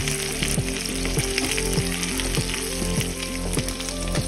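Whole small fish frying in hot oil in a pan, a dense, steady crackling sizzle.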